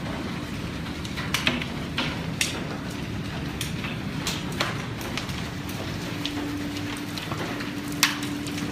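Hailstorm heard through a window: a steady rush of hail and rain, with scattered sharp clicks of hailstones striking the glass.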